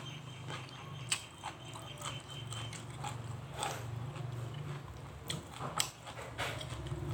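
Close-miked eating sounds: chewing with scattered sharp wet mouth clicks, over a steady low hum.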